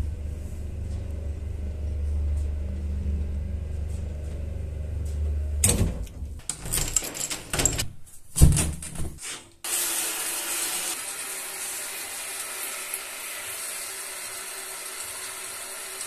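A lift's steady low hum as the cabin travels, then a few seconds of clicks and knocks from doors and a door handle and latch being worked. About ten seconds in, a steady hiss starts suddenly: a tap running into a sink.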